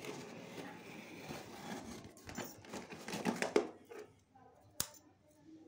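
Fingers scratching at and slitting packing tape along the seam of a cardboard box, a rustling scrape with a flurry of quick scratches between about two and three and a half seconds in. One sharp click follows near five seconds.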